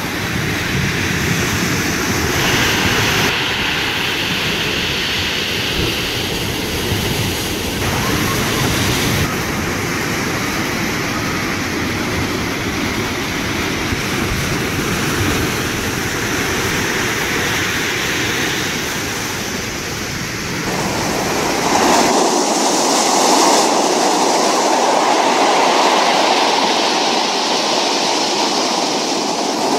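Rough, stormy sea waves breaking and surging against a stone harbour wall: a continuous heavy wash of surf and foam. The sound changes abruptly several times, and about 22 seconds in the deep rumble drops away, leaving a brighter hiss of surf.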